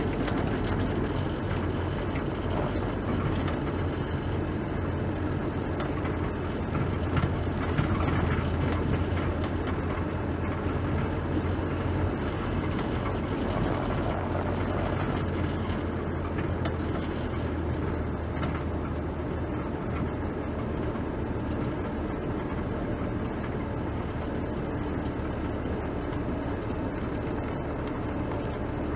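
Car driving along: steady engine and tyre noise with a continuous low hum.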